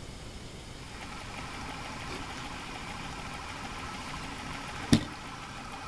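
Electric motor of a homemade pickup winder starting up about a second in and running steadily at its slow speed, spinning the bobbin holder on its shaft. A single sharp click sounds about five seconds in.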